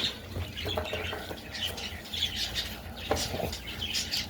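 Birds chirping and squawking in repeated short calls over a low steady hum.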